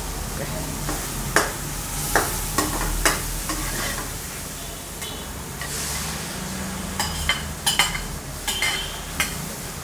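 Vegetables sizzling in a hot stainless steel karahi while a metal spatula stirs them, with sharp clinks and scrapes of the spatula against the pan, several in the first three seconds and a quick cluster near the end.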